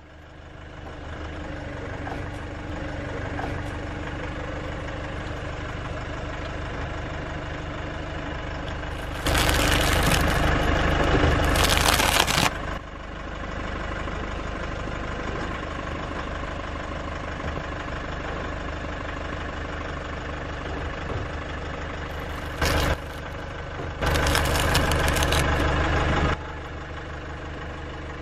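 Car engine idling steadily. Two spells of loud, even hissing noise, each about three seconds long, come a third of the way in and near the end, with a short burst just before the second.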